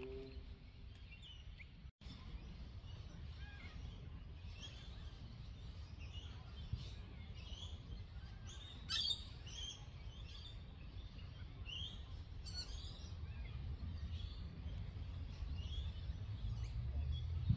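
Small birds chirping and calling in short, repeated notes, the strongest call about nine seconds in, over a steady low rumble.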